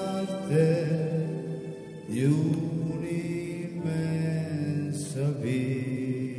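A man singing a slow hymn in long held notes, with new phrases starting about half a second, two seconds and five seconds in.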